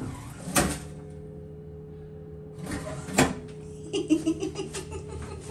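Cinderella incinerating toilet running its cycle after the start button is pressed: a steady motor hum, with two sharp mechanical clunks about two and a half seconds apart and a run of small clicks and rattles near the end.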